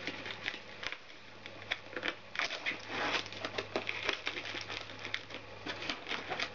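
Plastic packaging wrap being punctured and torn open, a run of irregular crinkles and crackles, densest about two and a half to three and a half seconds in.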